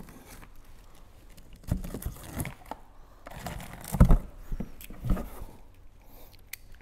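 Small knife blade slitting packing tape along the seams of a cardboard box, in a few short scratchy strokes about 2, 4 and 5 seconds in, the one near 4 seconds the loudest.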